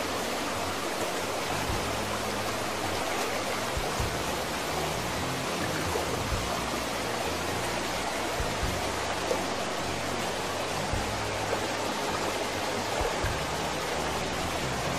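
Waterfall rushing steadily over rocks, with soft background music underneath.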